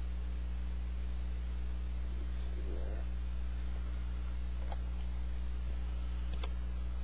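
Steady electrical mains hum, with a faint rustle about three seconds in and a few light clicks later on from baseball cards being handled.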